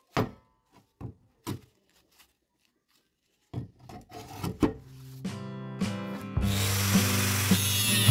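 Sharp knocks of a rusty steel loudspeaker frame handled on a concrete floor. Background music with a steady beat comes in after about three and a half seconds. About two seconds before the end, an angle grinder's cut-off disc starts cutting into the frame with a loud, even hiss.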